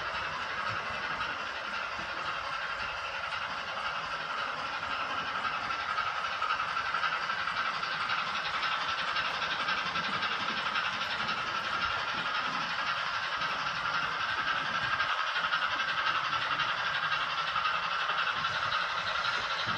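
Steam-locomotive running sound from a Zimo MS450R sound decoder, played through a 28 mm round speaker inside a Hornby OO-gauge LNER A3 Pacific model: a steady hiss of steam that gets a little louder about six seconds in.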